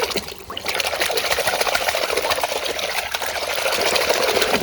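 Water spraying in a steady jet onto a mud-covered toy car, washing the dirt off; the spray starts about half a second in.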